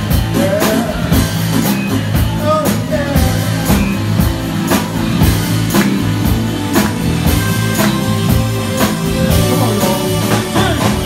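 Live funk and soul band playing a steady groove on drum kit, bass and keyboards, with a regular beat.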